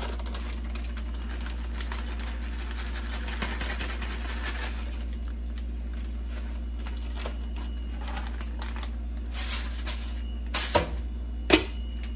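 Kitchen handling sounds: quick light clicks and taps of utensils and food being worked, over a steady low hum, with a few louder knocks near the end.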